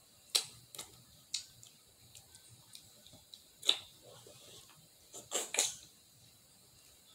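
Snow crab shell cracking and snapping as it is broken apart by hand, a scatter of sharp cracks and clicks with a quick run of three a little past the middle.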